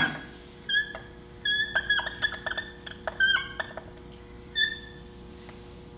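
Dry-erase marker squeaking against a whiteboard as a word is written stroke by stroke: a run of short, high squeaks, in clusters through the first few seconds, the last one near the five-second mark.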